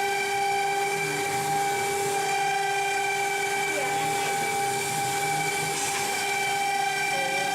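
CNC plasma cutter's torch cutting steel: a steady high whine with overtones over a hiss.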